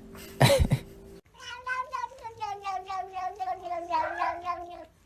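A short, loud noisy burst about half a second in, then a domestic cat yowling in one long, wavering call that slowly falls in pitch for over three seconds before cutting off: a warning yowl from a cat being bothered.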